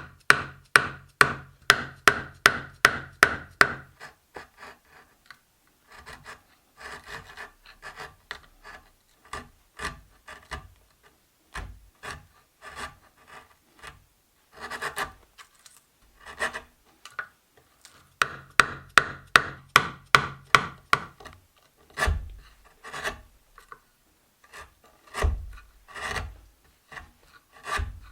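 A hand tool worked across wood in rhythmic rasping strokes, about three a second in two runs, with softer scattered strokes between them. A few dull knocks come near the end.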